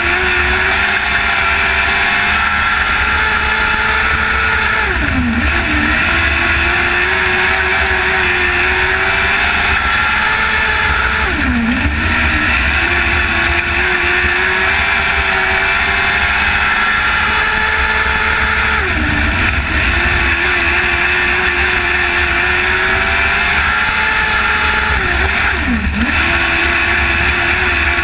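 Lightning sprint race cars running laps at full throttle. The engine note dips sharply and climbs back about every seven seconds as they lift off for the turns.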